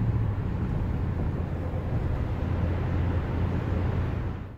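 Steady road noise inside a moving pickup truck's cabin: a low drone with tyre and wind hiss over it.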